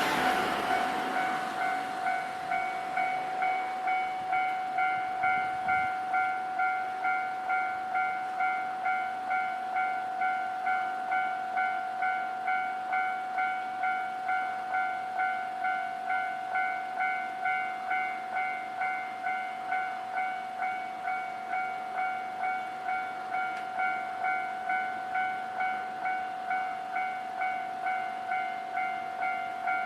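Electronic warning bell of a Japanese railway level crossing ringing steadily, an even two-tone ding repeating about one and a half times a second, signalling that a train is approaching or passing. A rushing noise fades out in the first second.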